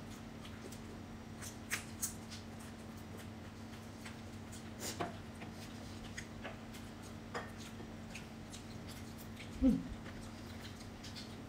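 Close-miked eating sounds: scattered small clicks and wet smacks of chewing and of fingers pulling fried fish off the bone, over a steady low hum. Near the end, a brief low sound falling in pitch is the loudest thing.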